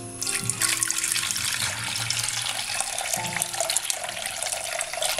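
Water poured in a steady stream into a pressure cooker onto roasted split moong dal, starting just after the start and cutting off abruptly at the end.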